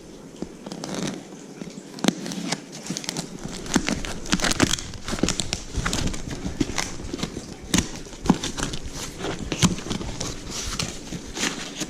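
Cardboard shipping box being opened by hand: irregular rustling, crinkling and tearing of cardboard and packing, with many sharp clicks.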